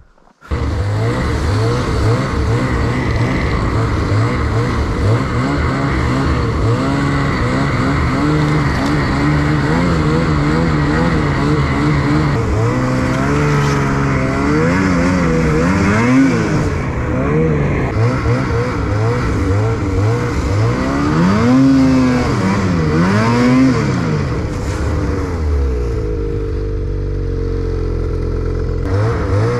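Snowmobile engine running under load as the sled is ridden over snow. The revs rise and fall over and over, then hold steadier near the end.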